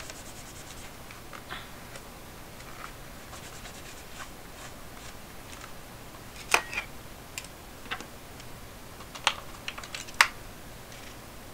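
Plastic calculator case being wiped with a tissue and handled: a short stretch of rubbing, then scattered sharp plastic clicks and taps, the loudest about six and a half and about ten seconds in.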